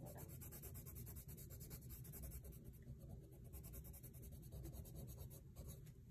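Red coloured pencil shading on paper: a faint, steady scratching of quick, repeated hatching strokes.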